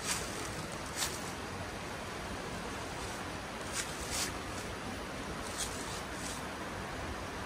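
Steady rushing of a river below, with a handful of short, sharp clicks scattered over it.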